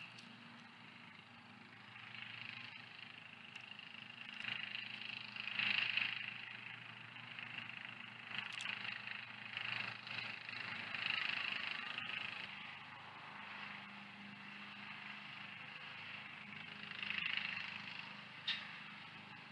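Faint outdoor ambience: a steady low hum under a rushing hiss that swells and fades several times, with a few faint clicks.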